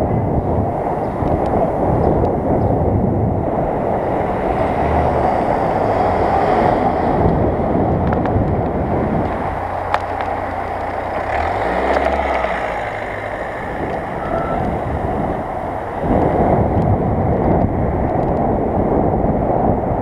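Wind buffeting the microphone of a camera on a moving bicycle, mixed with street traffic. Midway the wind eases and a car's engine can be heard close alongside. There is one sharp click about ten seconds in, and the wind noise rises again near the end.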